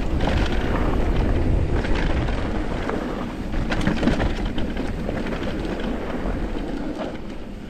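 Electric mountain bike rolling down a dirt singletrack: steady tyre noise on the dirt trail with scattered clicks and rattles from the bike.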